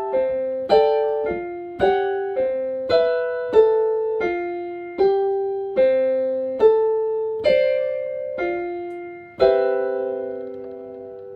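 Kawai Soundtree 4A keyboard on its carillon (bell tower) voice playing a slow melody of bell-like struck notes and chords, about one to two a second, each ringing and fading. About nine seconds in it lands on a final chord that rings on.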